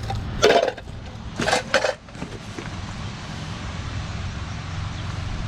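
Metal tools and winch parts clanking twice, over a steady engine hum; from about two seconds in only the steady running noise remains.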